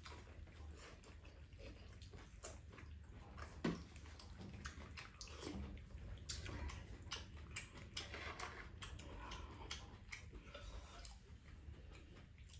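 Quiet mealtime sounds: chopsticks and a wooden spoon clicking and scraping against a stainless-steel bowl of bibimbap and small soup bowls, with one sharper clack about four seconds in, over a steady low hum.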